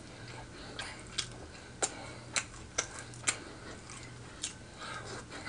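Close-up eating sounds: wet mouth clicks and smacks from chewing pork chop in gravy, irregular sharp clicks about two a second over a low steady hum.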